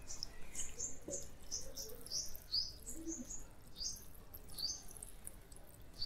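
A small bird chirping over and over, short high chirps about two a second, each dipping slightly in pitch. Under it, water from a watering can soaks softly into a cloth over sand.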